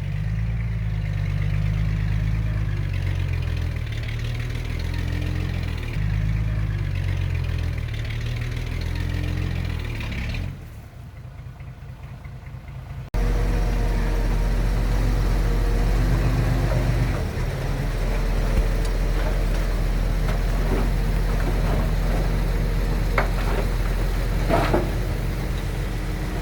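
Heavy diesel engine of earthmoving machinery running, its pitch rising and falling with the load. It drops quieter about ten seconds in, then comes back abruptly louder and steadier, with a few sharp knocks near the end.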